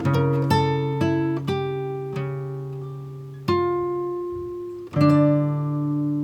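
Background music: plucked acoustic guitar notes and chords, each ringing out and fading, with a louder chord about five seconds in.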